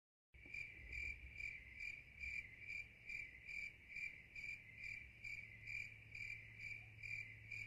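Cricket chirping in an even, steady rhythm of about two to three chirps a second, starting abruptly after a moment of dead silence. A low steady hum runs underneath.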